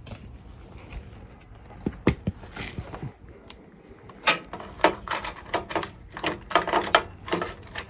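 Mechanical clicking and clacking of hands and tools at work: a few scattered clicks at first, then a quick run of sharp clacks from about four seconds in.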